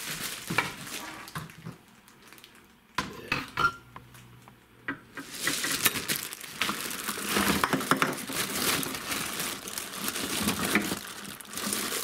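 Clear plastic bag crinkling and rustling as the rubber hose wrapped inside it is handled. A few knocks and clicks in the first few seconds, then dense, continuous crinkling from about five seconds in.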